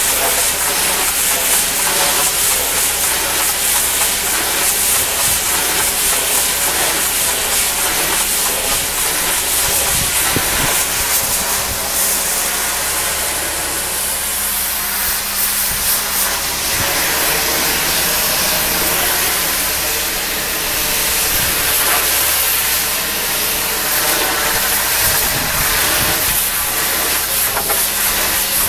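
Pressure washer spray hissing steadily against a masonry building wall, over the steady hum of a running engine. The hiss eases briefly about halfway through.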